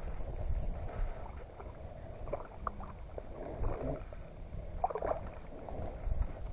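Small fishing boat on the water: a steady low rumble with scattered small knocks and clicks from handling gear in the boat.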